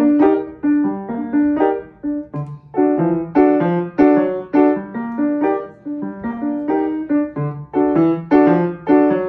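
Upright piano played solo: a melody of short, separate notes in a steady rhythm, with lower bass notes joining in now and then.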